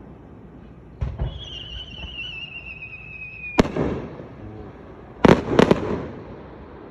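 Festival fireworks launched at close range: a thump, then a whistle falling slightly in pitch for about two and a half seconds, cut off by a sharp, loud bang. About a second and a half later three more loud bangs follow in quick succession.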